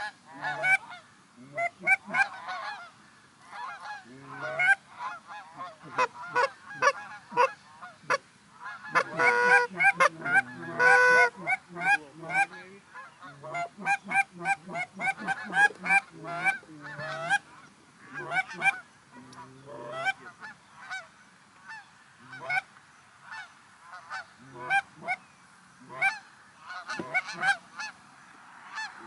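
Canada goose honks and clucks blown on hunters' goose calls, calling to a flock of geese. The notes come in quick, overlapping series, densest about nine to eleven seconds in and sparser in the second half.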